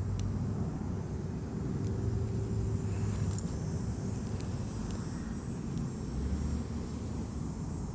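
Steady low rumble with faint humming tones and a few faint high clicks.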